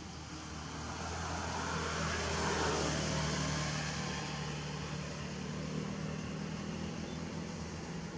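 A motor vehicle's engine running, with a steady low hum and a wider noise that swells to its loudest about two to three seconds in and then eases off.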